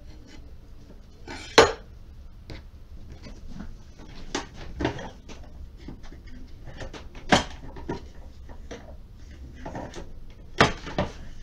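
Kitchen handling sounds: a knife knocking on a wooden cutting board through boiled potato, then clacks of a plastic push-down vegetable dicer being loaded and pressed. A few sharp knocks stand out, about one and a half seconds in, about seven seconds in and near the end.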